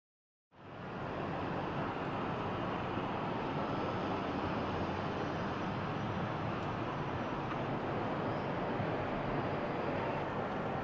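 Steady outdoor ambient noise with no distinct source, fading in quickly about half a second in.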